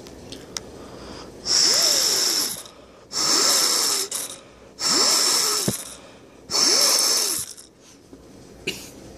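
Four breaths blown by mouth through a water flow sensor, each about a second long with a faint tone that rises and falls, to simulate water flowing through the sensor.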